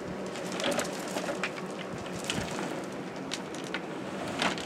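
Electrical wires rubbing and scraping as they are fed by hand into conduit, with scattered short clicks over a steady low background.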